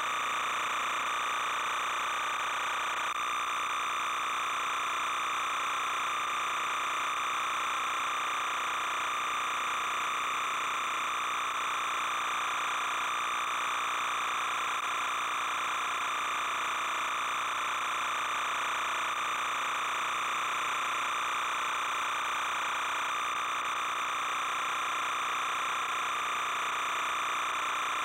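Background music: a steady synthesizer drone with no beat, holding the same sound throughout.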